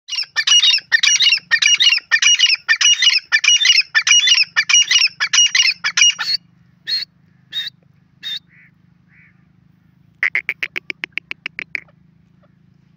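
Grey francolin (teetar) calling: a loud, harsh phrase repeated quickly for about six seconds, then a few single notes, and near the end a fast run of about a dozen short clipped notes.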